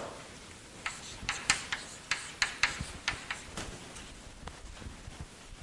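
Chalk writing on a blackboard: a run of sharp taps and short scratches as symbols are chalked, most of them between about one and four seconds in, a few fainter ones after.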